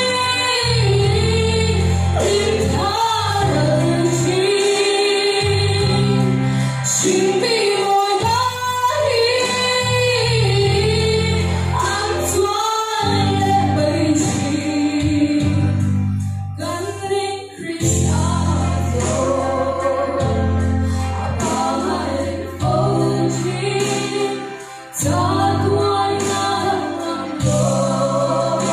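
Two girls singing a Mizo gospel hymn as a duet through microphones, over a recorded backing track with a steady bass line. The voices break off briefly a little past halfway, then come back in.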